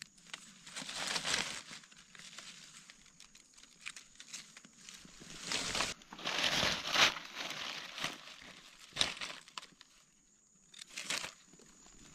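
Dry leaf litter rustling and crackling in several irregular bursts as gloved hands brush through it on the forest floor, loudest about six to seven seconds in.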